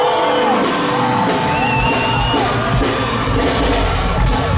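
Live band music with a singer's voice sliding up and down in pitch over it, and heavy bass and drums coming in about a second in.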